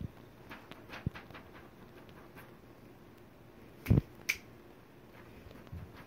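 A person snapping their fingers twice in quick succession about four seconds in, with a few fainter clicks about a second in.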